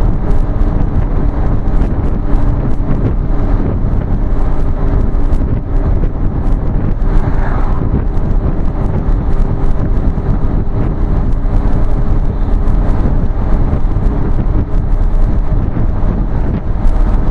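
Steady engine and road noise of a vehicle driving at road speed, heard from inside the cab, heavy in the low end with a faint steady hum.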